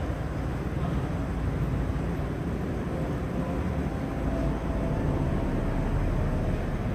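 Steady low rumble of an empty airport terminal's background noise, with no distinct events.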